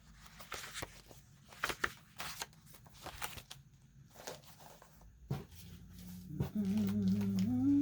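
Sheets of paper and stationery being flipped through and handled, a run of short crisp rustles and flicks. Near the end a low steady hum with a wavering pitched tone above it comes in and grows louder.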